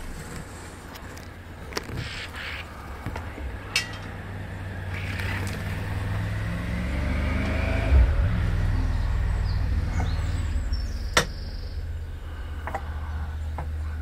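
A motor engine rumbling, growing louder over several seconds and then holding steady before easing off, with a few sharp taps over it.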